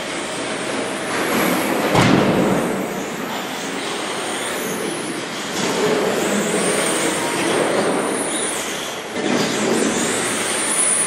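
Radio-controlled race trucks running laps, a high whine rising and falling as they speed up and slow down over a steady rush of noise, in a reverberant hall. A sharp knock about two seconds in.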